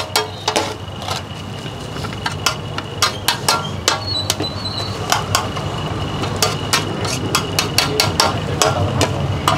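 A metal spatula clacking and scraping against a large flat tawa as noodles are served onto plates: irregular sharp clacks, several a second, over a steady low hum.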